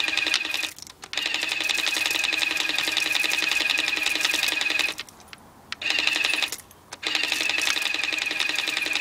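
Motorised pump of a battery-powered Nerf Super Soaker Lightningstorm water blaster running with a steady pitch and fast rattling whirr as it sprays a continuous stream. It cuts out and restarts three times: about a second in, for most of a second past the middle, and briefly again soon after.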